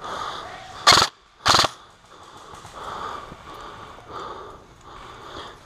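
Two short bursts of full-auto fire from an airsoft M4-style SOPMOD Block II rifle, about half a second apart, about a second in. The shooter breathes hard between and after them.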